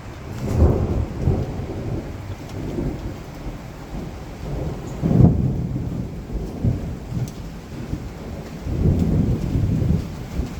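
Thunder rumbling over steady rain in a severe thunderstorm, swelling three times: about half a second in, most loudly around five seconds in, and again near the end.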